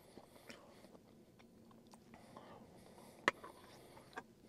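Quiet eating sounds of a person having soup: soft mouth and chewing noises with small clicks, and one sharp click a little over three seconds in.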